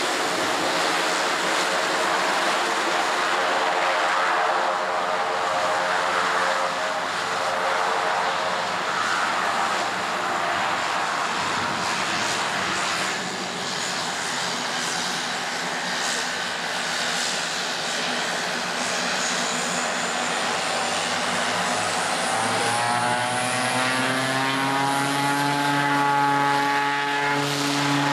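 Short 360's twin Pratt & Whitney Canada PT6A turboprop engines and propellers running at taxi power, a steady engine tone over a broad rush. About three-quarters of the way through the tone rises in pitch and grows stronger as the engines are throttled up for the takeoff run.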